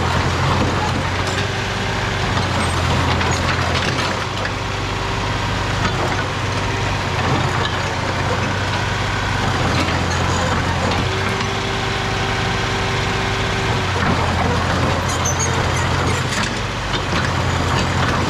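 Mini excavator diesel engine running steadily, with a higher whine that comes and goes several times over it.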